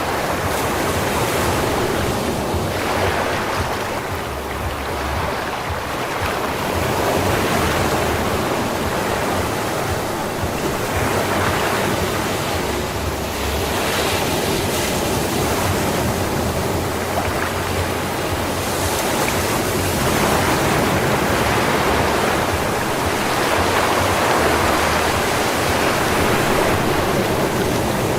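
Sea waves breaking and washing up a sandy beach, a continuous surf that swells and subsides every few seconds.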